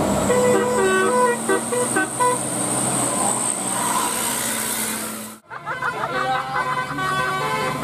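Bus telolet horn tooting quick runs of stepped notes, a short multi-tone melody, over engine and traffic rumble. There is a brief break about five and a half seconds in, and then another run of horn notes.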